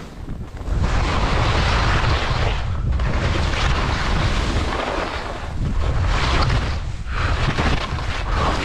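Skis scraping over firm, icy snow through a run of turns, the hiss swelling loud with each turn and dipping briefly between them, with wind buffeting the microphone.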